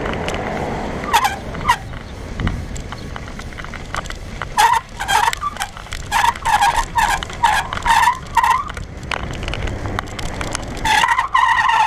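Worn front-wheel brake pads on a KhVZ bicycle squealing hard under braking: a series of short high squeals, then a longer wavering one near the end, over a low rumble. The 1988 pads' rubber has hardened like plastic, which causes the squeal.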